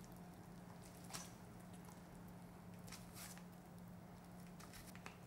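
Near silence: faint soft squishing as blanched oyster mushrooms are torn apart by hand, with a few light sounds about a second in, around three seconds in, and near the end, over a faint steady hum.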